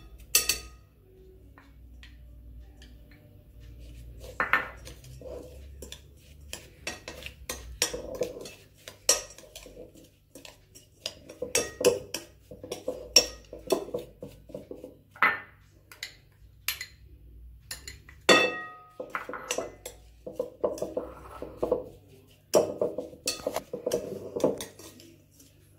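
Metal spoon stirring a crumbly mix of crushed chocolate sandwich cookies and nuts in a glass bowl, scraping through the crumbs with irregular clinks against the glass.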